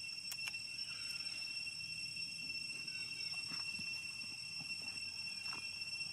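Steady high-pitched insect drone, with a few faint clicks about half a second in.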